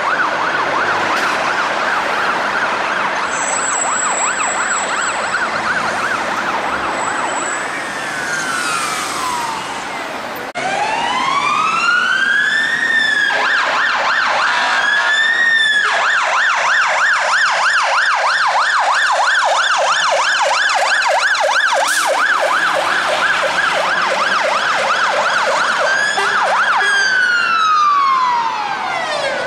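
Scania fire engines' sirens sounding on an emergency run. They switch between a fast warbling yelp and a slower wail that climbs and falls over a couple of seconds.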